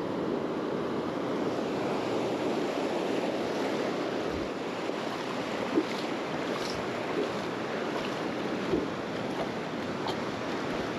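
Shallow surf washing over the sand at the waterline: a steady rush of foaming water.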